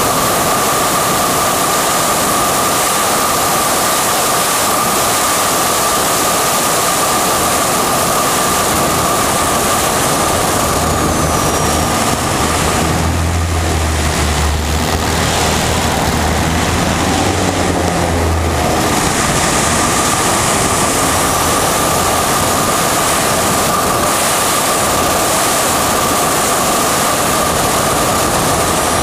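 Single-engine propeller aerobatic plane in flight, heard from a camera on its fuselage. A steady engine and propeller drone sits under loud wind rush, with a steady whine through it. For several seconds around the middle, during a pull-up manoeuvre, a deep low engine hum grows strong and then fades back.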